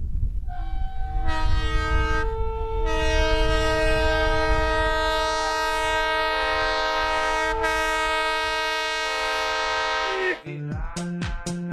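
Locomotive air horn sounding a chord of several notes: a few short blasts, then one long blast, over the low rumble of a passing train. The horn stops about ten seconds in and music with a beat starts.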